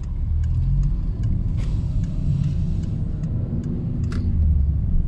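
Steady low rumble of a car, with a few faint ticks.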